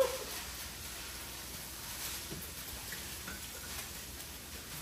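Italian sausage and ground beef frying in a pan on the stove, giving a steady sizzle.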